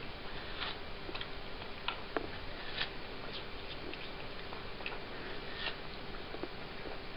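A cat chewing watermelon: irregular small wet clicks and smacks, a few a second, over a steady hiss.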